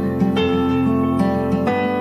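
Instrumental background music with guitar, new notes sounding every half second or so.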